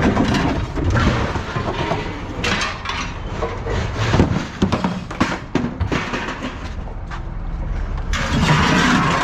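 Heavy refrigerator being shoved and dragged across a truck bed: repeated metal knocks, clanks and scraping over a running engine, with a longer scrape near the end.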